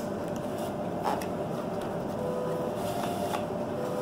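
A small cardboard box being opened by hand: its end flap pulled open and the paper inner tray slid out, giving a few brief rustles and scrapes over a steady background hiss.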